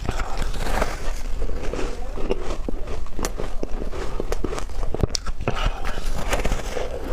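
Repeated bites into soft frozen ice such as freezer frost or shaved ice: dense, crisp crunching and crackling, several bites in quick succession.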